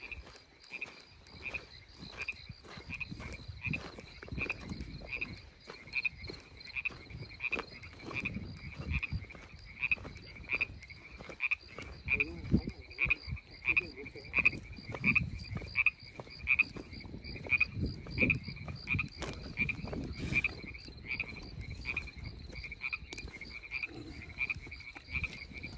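Frogs calling in a steady chorus, a regular high call repeating about three times a second. Irregular footsteps and rustling on dirt and grass underneath.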